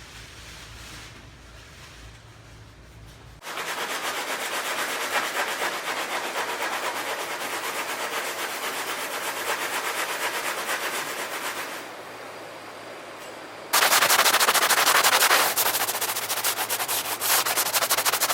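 Sanding of Bondo body filler on the truck's bodywork: a dense, steady scratching that starts abruptly a few seconds in, breaks off, then comes back louder near the end as rapid fine strokes.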